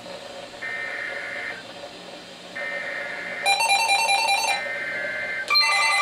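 Emergency Alert System SAME header: three harsh two-pitch data bursts, each about a second long with about a second between them, announcing an alert. A short electronic beeping overlaps the middle burst, and about five and a half seconds in a louder electronic alert tone with several pitches begins.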